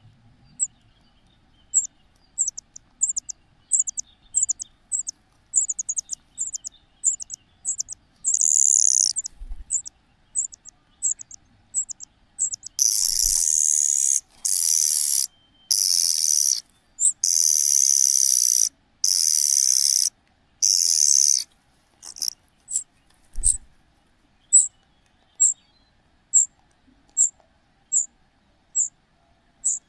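A young cuckoo's high, thin begging calls, repeated about twice a second. From about 13 to 21 seconds they give way to a run of loud, harsh calls about a second long, then the short calls start again, a little slower.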